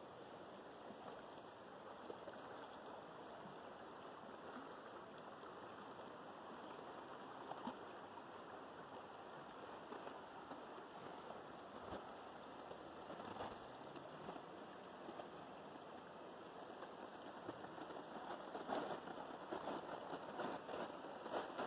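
Steady, faint rush of a flowing river, with footsteps crunching on dry leaves and twigs a few times near the end.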